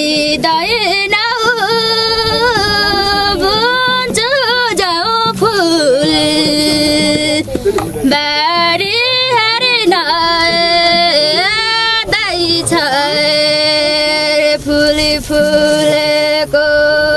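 A woman singing a Far-Western Nepali deuda folk song solo, her voice bending and wavering through ornamented phrases, breaking off briefly twice, then holding one long steady note near the end.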